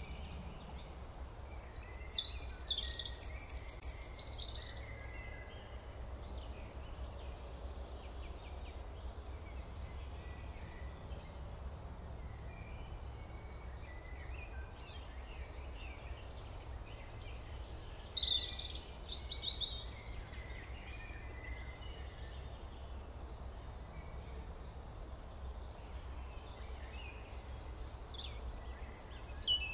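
Steady low hum with three short bouts of bird chirping, high and quick.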